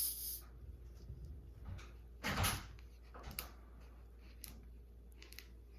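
A Coca-Cola bottle top being worked off by hand: scattered small clicks and one louder, short noisy burst a little over two seconds in.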